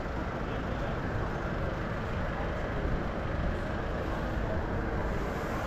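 Steady road-traffic noise on a busy city street: a continuous low rumble of passing cars and buses.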